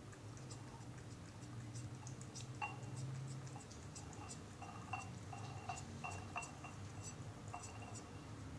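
Cat eating from a cut-glass bowl: irregular small clicks and ticks as it chews and its teeth and food knock on the glass. The middle of the stretch has several of these knocks ring out as short clear pings.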